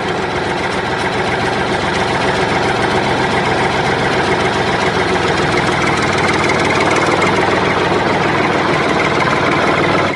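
Engine idling steadily, a dense even rumble that cuts off suddenly at the end.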